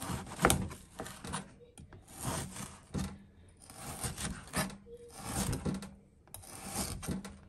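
Cleaver slicing raw beef on a cutting board: a series of rasping strokes as the blade works through the meat, with sharp knocks as it meets the board, the loudest knock about half a second in.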